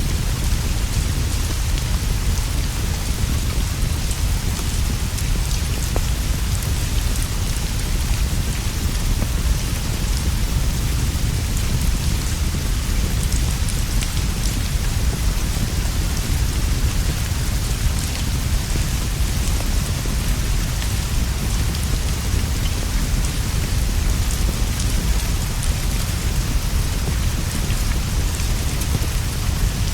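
Steady heavy rainfall, an even hiss with a deep low rumble underneath and faint scattered ticks, unchanging throughout.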